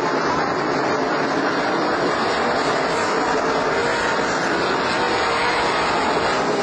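Several winged sprint cars' V8 engines running hard at racing speed on a dirt oval, a dense steady drone in which faint engine pitches drift up and down as the cars pass.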